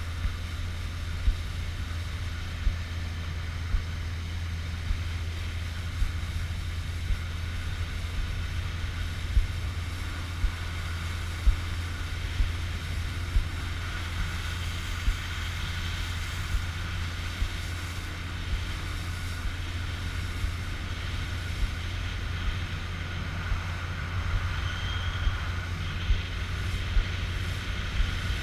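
Motorboat engine running steadily under way, a low drone, with a short sharp knock recurring about once a second.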